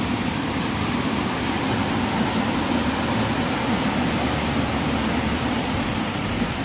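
Steady rush of white water pouring over rock ledges at a waterfall.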